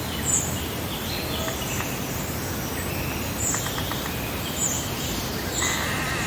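Birds chirping and singing over a steady background hiss, with short high chirps every second or so. There is a quick run of ticks about three seconds in, and a louder call near the end.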